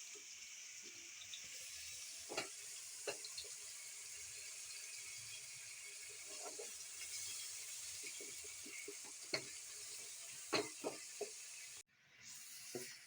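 Food sizzling in a cooking pot, a steady faint hiss, with a few light clicks of a utensil against the pot; the sound breaks off abruptly near the end.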